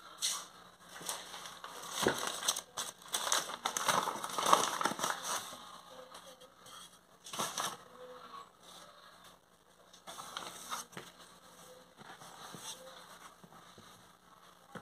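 A hand scattering flour and rubbing it across a round plastic board: irregular scraping and rustling strokes, busiest in the first five seconds, then occasional single ones.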